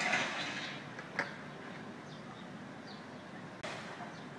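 Metal pipes dropped into a steel dumpster: a clattering crash at the start, then a single sharp clank about a second later.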